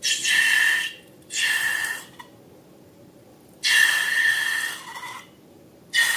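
Air rushing out of a balloon's neck in four bursts of about a second each, a hiss with a steady high squeal.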